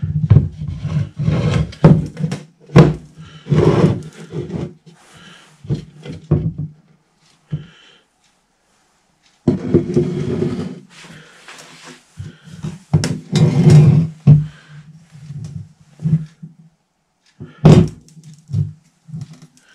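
A plaster cast being broken and pulled away from a welded steel-nut face mask: irregular bursts of crunching and scraping, with sharp knocks of the mask and plaster chunks on a wooden workbench. The sound stops for about a second and a half partway through.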